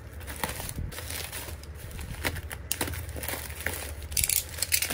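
Bubble-wrapped packages being handled and shifted, the plastic wrap crinkling and rustling in quick, irregular crackles that are busiest near the end.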